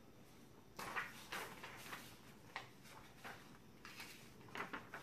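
A sheet of A4 paper rustling as it is picked up and handled, in a dense run of short rustles for about a second, then a few scattered ones.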